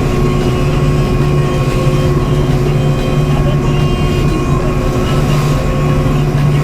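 Motorboat engine running steadily while the boat trolls, a constant low drone with a steady hum.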